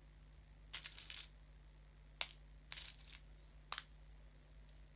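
Sticky tape being handled and peeled: a few short crinkles and sharp clicks, the two sharpest about two seconds in and near four seconds.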